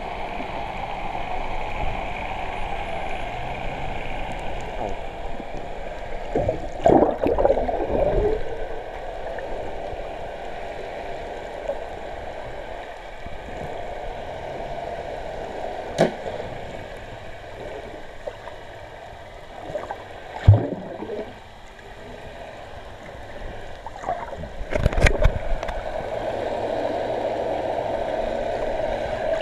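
Underwater sound picked up by an action camera: a steady watery hiss, with bursts of splashing and bubbling about 7 and 25 seconds in and sharp knocks near 16 and 20 seconds.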